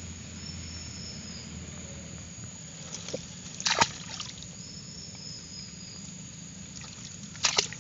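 Hands scooping and pulling wet mud and muddy water out of an eel burrow in a bank: soft sloshing and squelching, with a few sharp wet slaps about four seconds in and again near the end.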